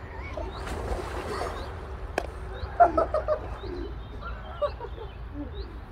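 Birds calling: short, high, rising chirps repeating about once a second, with a louder run of quick notes about three seconds in, over a steady low wind rumble. A single sharp click just after two seconds.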